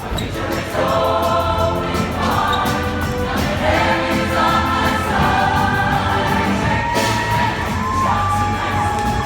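A vocal group singing with musical accompaniment, several voices holding and moving between notes together.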